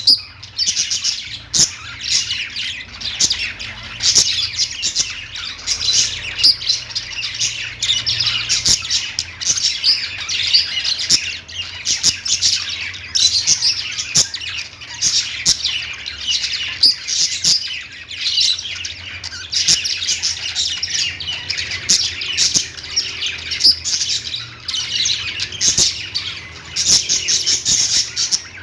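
Small pet parrots chirping and chattering continuously, a dense stream of rapid high chirps and squawks.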